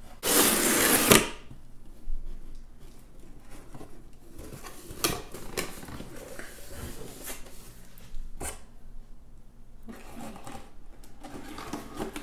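Cardboard box being opened and its packing handled by hand. A loud rasp of cardboard lasts about a second near the start, then come scattered rustles and a few light knocks.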